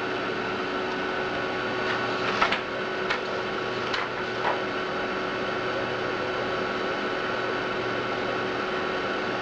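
Amiga 4000's hard drive and power supply running with a steady hum and whine, with a few short clicks between about two and five seconds in.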